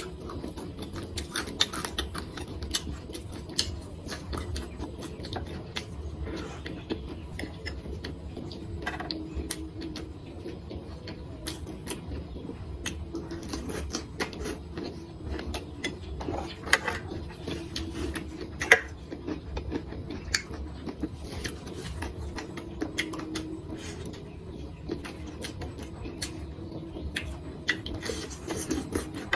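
Close-up eating of crispy deep-fried baby shark catfish (cá dứa): irregular sharp crunches and wet chewing clicks, over a faint steady hum.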